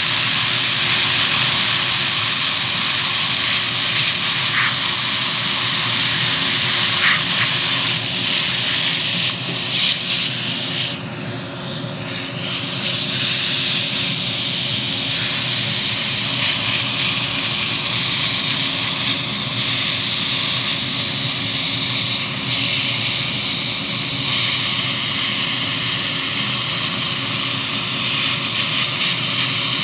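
High-speed dental drill with water spray cutting out amalgam fillings from a molar. Its thin, high whine comes and goes in runs of a few seconds over the steady hiss of a large-bore suction tip.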